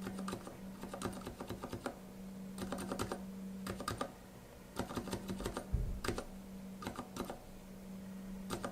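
Aliaz 70 g silent tactile keyboard switch in a switch tester, pressed and released repeatedly in quick clusters of soft, pretty quiet clicks. A steady low hum runs underneath.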